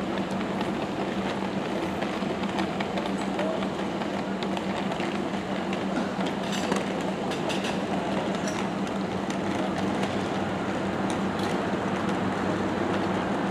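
Steady street ambience at a busy bus and trolleybus stop: a constant low hum over a wash of traffic noise, with a few scattered clicks around the middle.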